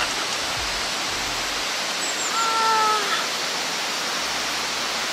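Steady rush of flowing stream water. About halfway through, a woman's voice rises over it in one drawn-out, slightly falling exclamation.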